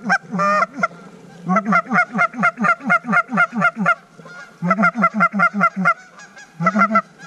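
Goose calling: quick runs of short honks, about four a second. There are a couple of calls near the start, then a long run of about ten, a shorter run, and a brief burst near the end.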